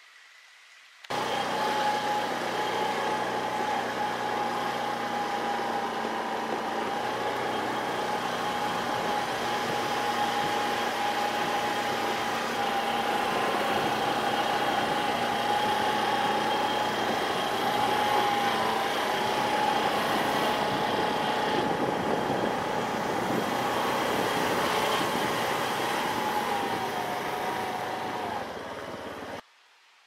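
A motor engine running steadily with a constant hum. It cuts in sharply about a second in and stops abruptly just before the end.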